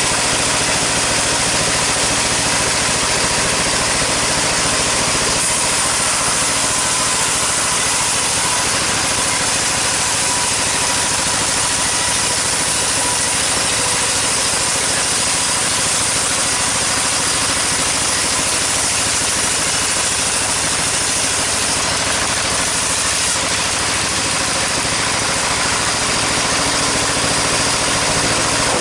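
Sawmill machinery running steadily: a loud, even mechanical noise with a constant hum, unchanging throughout.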